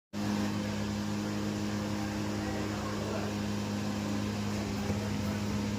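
Steady electrical hum with a constant hiss, holding at one pitch and level, like a small electric motor or appliance running.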